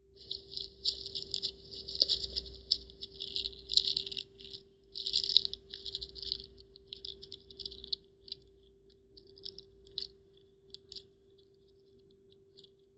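Slime being squeezed and worked by hand, giving a dense run of small crackling clicks that thins to scattered pops after about eight seconds. A steady faint hum lies underneath.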